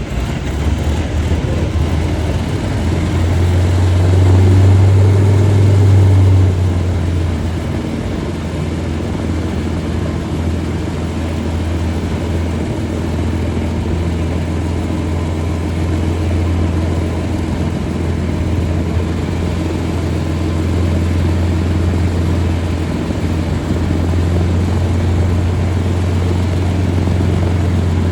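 Lockheed P-38 Lightning's twin Allison V-12 piston engines running with a steady low drone, swelling louder for a couple of seconds about four seconds in.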